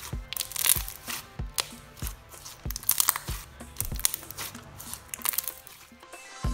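Thick basic slime being pressed and folded by hand, its trapped air bubbles popping in a series of sharp, irregular crackles and clicks. Soft background music runs underneath.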